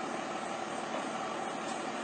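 Engine running steadily through a straight-pipe exhaust, a constant drone that holds one pitch.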